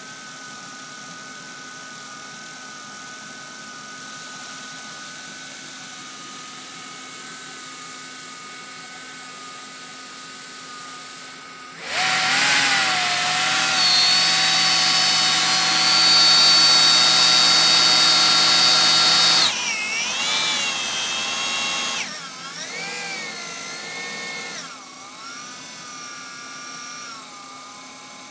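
GM CS130 alternator spinning on a computerized alternator test bench, making a steady machine whine. About twelve seconds in the speed runs up: the whine climbs in pitch and grows much louder, holds for about seven seconds, then drops back. After that the pitch wavers up and down as the speed changes.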